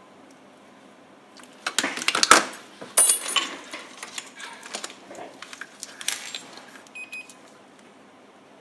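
Clatter and clicks of small hard tools and parts being handled on an electronics workbench, in irregular bursts over about six seconds, loudest near the start, with a brief high tone near the end.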